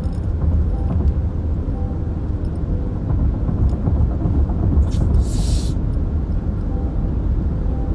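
Steady low road and engine rumble heard from inside a moving car, with one short hiss about five seconds in.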